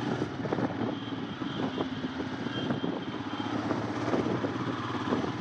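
Royal Enfield Himalayan motorcycle's single-cylinder engine running steadily while riding along a road, with road and wind noise.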